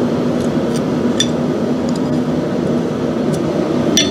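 Steady rushing noise with a low hum from running shop equipment, with a few faint metal clicks. Near the end a steel nail header is set down on the anvil with a ringing clink.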